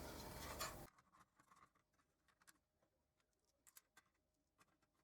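Near silence: faint room hiss that cuts off abruptly about a second in, then a few faint, scattered ticks.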